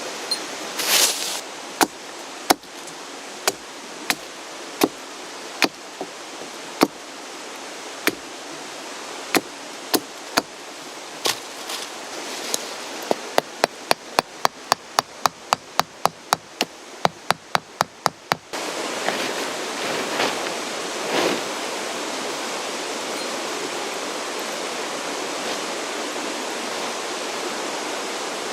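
Repeated sharp knocks, like hammer strikes, over the steady rush of a mountain stream. The knocks come about once a second, then speed up to about three a second. About two-thirds of the way in they stop, and the stream suddenly becomes louder.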